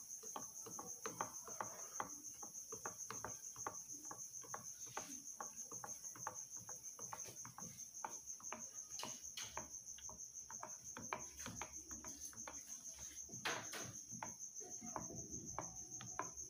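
Wooden spoon stirring a baking-soda and vinegar solution in a plastic measuring jug, tapping and clicking irregularly against the sides several times a second. A steady high trill sounds behind it.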